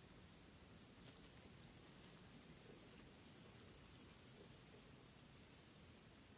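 Near silence: a faint, regular high chirping, about two chirps a second, over a steady faint hiss, with a couple of soft ticks about four to five seconds in.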